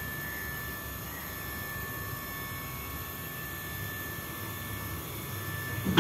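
Hydraulic scissor lift lowering its platform: a steady mechanical hum with a faint high whine held on one pitch. A sudden knock comes right at the very end.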